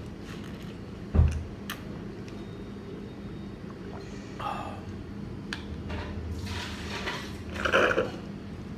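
Slurping iced milk coffee through a straw: a short suck about four and a half seconds in, then a longer, louder slurp near the end as the glass runs dry down to the ice. A low thump about a second in.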